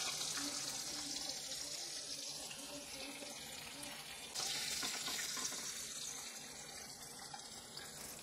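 Hot oil sizzling steadily around fried rohu fish steaks in a nonstick pan, the hiss easing off and stepping up again about four seconds in.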